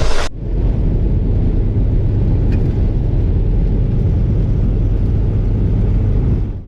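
Steady low rumble of a car driving, engine and road noise with little high-pitched content.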